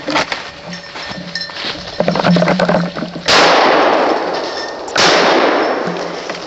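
Two shotgun shots about a second and a half apart, each starting suddenly and dying away slowly.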